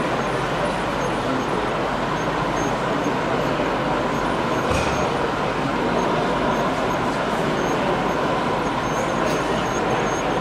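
Steady background hum and hiss of a busy exhibition hall, with no clear words, while an OO gauge model train of an electric locomotive and coaches rolls slowly along the layout.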